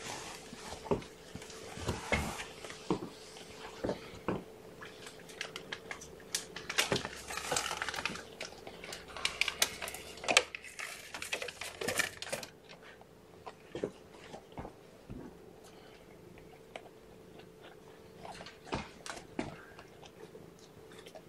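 Rustling and scattered light clicks and knocks for about the first twelve seconds, then quieter, with the soft wet sucking clicks of kittens nursing on their mother. A faint steady hum runs underneath.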